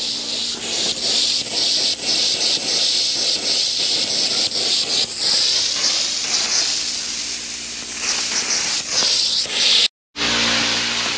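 Pop-up lawn sprinkler heads blowing out compressed air mixed with the last water in the line: a loud, sputtering hiss that pulses irregularly as the water is driven out of the zone. It breaks off briefly near the end, and a steadier hiss with a low hum takes over.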